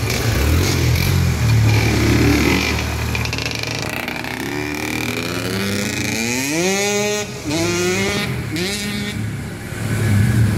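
Kawasaki KX85 two-stroke dirt bike engine running low and steady, then revving as the bike pulls away. Its pitch climbs, drops back at two upshifts and climbs again, then fades as it rides off.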